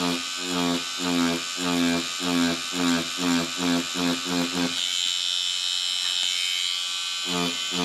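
Tattoo machine buzzing steadily, with a lower buzz pulsing in quick strokes about three times a second, the rhythm of short fur strokes. The strokes stop for a couple of seconds about five seconds in and start again near the end.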